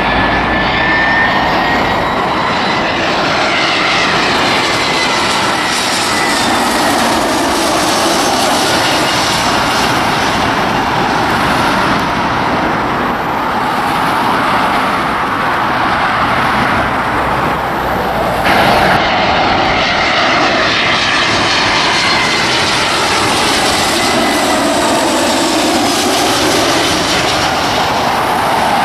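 Jet engine noise from Airbus A320-family airliners on final approach passing low overhead: a loud, steady rush with whining tones that glide in pitch. The sound changes abruptly about two-thirds of the way through as a second jet follows.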